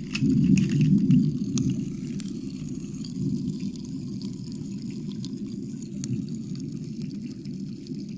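Wet mouth sounds close to the microphone: licking, with many scattered short wet clicks over a steady low rumble that is loudest in the first second or so.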